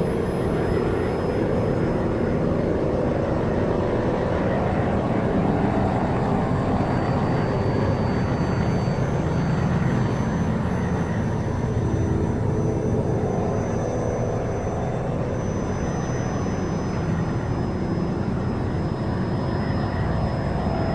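A steady, even droning rumble that does not change.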